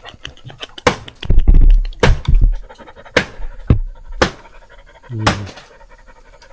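A dog panting close to the microphone, with sharp knocks and scrapes about once a second and a low rumble about one and a half seconds in.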